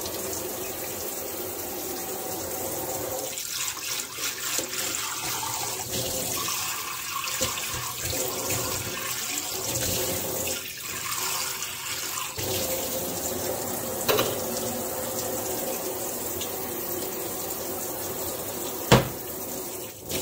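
Kitchen tap running full into a stainless steel sink, a steady splashing whose sound shifts for several seconds in the middle. A small click comes about two-thirds of the way through, and there is a single sharp knock near the end.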